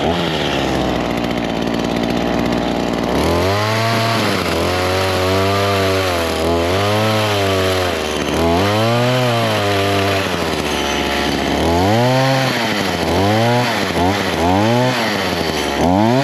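Gas chainsaw running loud, holding one steady note for about three seconds, then revving up and dropping back again and again as it is throttled through a cut in a fallen tree. Its chain has been called loose.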